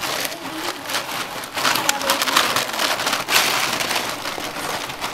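Ice cubes clattering and crunching against each other and a plastic tub as a capped plastic water bottle is pushed down into the ice, a dense run of small clicks that is busiest around the middle.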